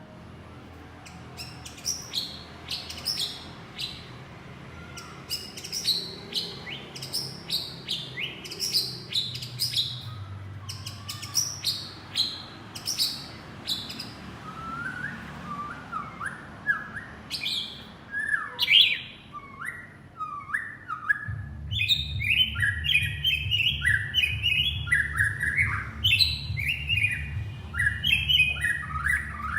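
Male white-rumped shama singing to call its mate: a long run of quick, falling whistled notes, then lower, more varied whistled phrases from about halfway. A low steady hum comes in about two-thirds of the way through.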